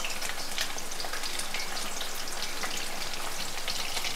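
Chicken lollipops deep-frying in a kadai of hot oil, their second fry: a steady sizzle with frequent small pops and crackles.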